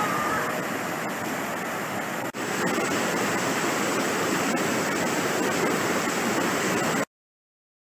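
Fast-flowing floodwater rushing and churning, a steady noise of moving water. It breaks briefly a little over two seconds in, comes back louder, and cuts off suddenly near the end.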